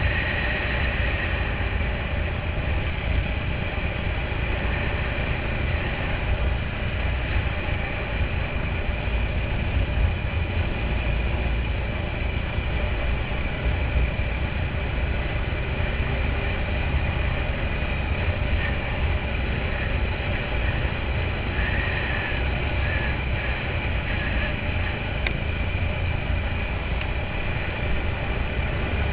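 ATV (quad bike) engine running at a steady pace while riding over a dirt track, heard from on board as a constant heavy low rumble with a noisy hiss above it.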